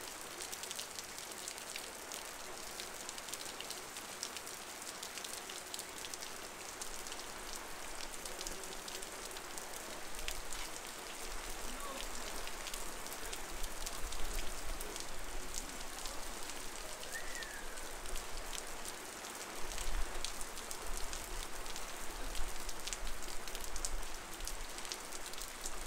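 Heavy rain falling on a street, a steady hiss dense with sharp ticks of individual drops. A low rumble joins in about ten seconds in and again near twenty seconds.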